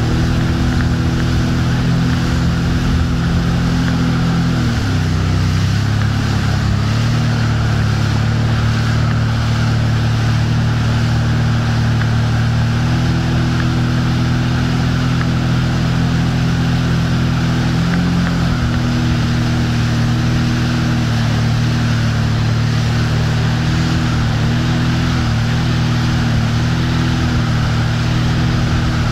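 Motorboat engine running at speed while towing, a steady drone whose pitch dips about five seconds in and comes back up a couple of seconds later, with smaller shifts later on. Under it is the constant rush of the churning wake water.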